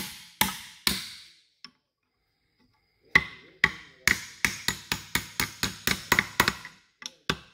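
Brass hammer tapping on an aluminum bar used as a drift, driving a carrier-bearing shim into a Nissan R200 differential housing. Two strikes, a pause of about two seconds, then a run of quicker light taps at about four a second until the shim seats.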